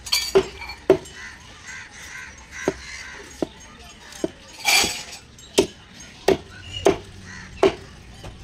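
Big knife chopping through catla fish steaks on a wooden chopping block: about ten sharp, separate chops at an uneven pace, roughly one every half second to second.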